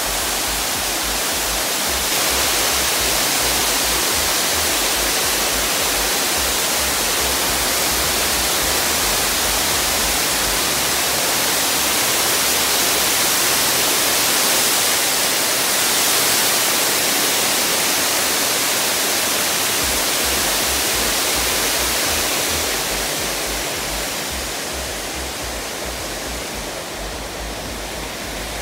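Water pouring down a tall waterfall wall: a loud, steady rushing hiss that eases a little near the end.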